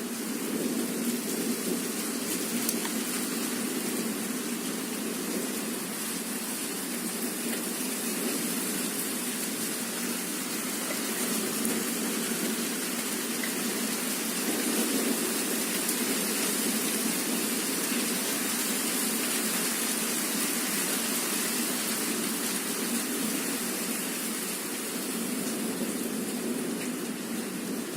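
Heavy rain pouring down in a steady, even hiss, with no thunder.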